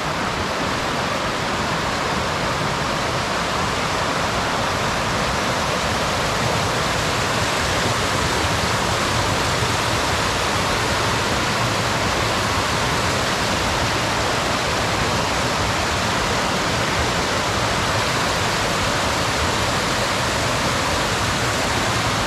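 Mountain creek water rushing steadily over rocks, an even, full-bodied rush that swells slightly in the first few seconds and then holds.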